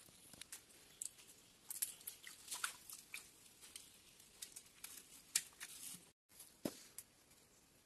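Faint, irregular clicks, crackles and rustles of hands handling wet leaves and a green bamboo tube.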